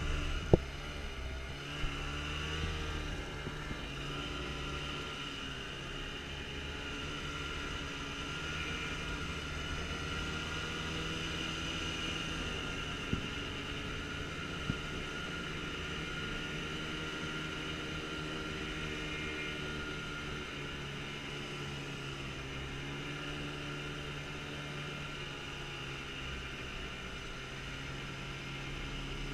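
Snowmobile engine running at a steady pace, an even drone with a steady high whine over it. A sharp knock sounds about half a second in, with a few fainter clicks later on.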